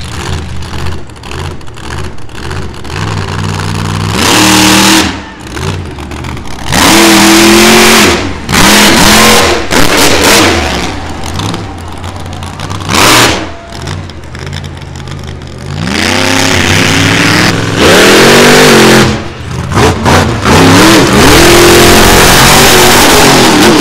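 Monster truck engine revving hard in repeated full-throttle bursts, its pitch climbing in each burst and falling back between them.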